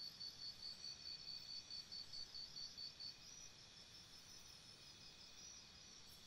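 Faint night chorus of insects: several steady high-pitched trills, with one caller chirping about five times a second until it stops about three seconds in.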